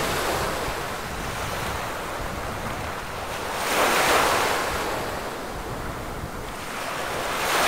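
Sea surf breaking and washing up a stony beach, with a wave swelling louder about four seconds in and another building near the end; wind rumbles on the microphone.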